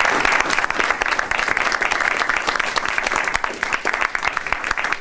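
A small audience applauding, with the clapping thinning into separate claps near the end.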